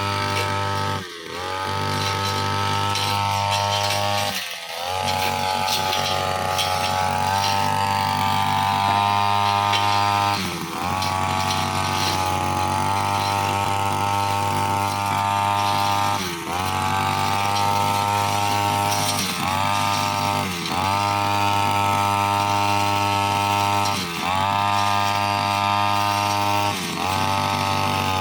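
Petrol brushcutter engine running at high revs while its blade cuts grass, the pitch dipping briefly and climbing back again about eight times.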